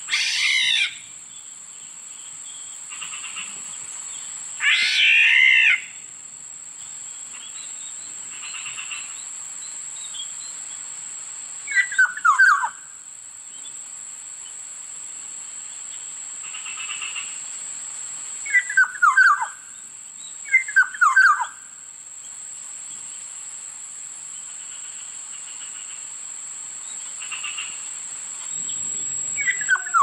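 Black-naped oriole calling: two long harsh calls in the first six seconds, then several short clusters of quick falling notes spaced a few seconds apart. A steady high-pitched drone runs underneath.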